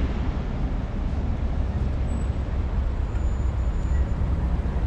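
Road traffic noise, a steady low rumble of cars running along a city street.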